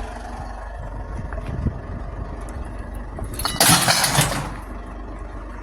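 Truck engine idling steadily, with one loud, harsh crash lasting about a second in the middle.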